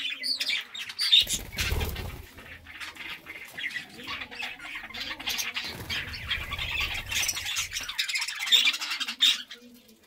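A flock of budgerigars chattering and squawking, with many short high chirps throughout and some wing flapping.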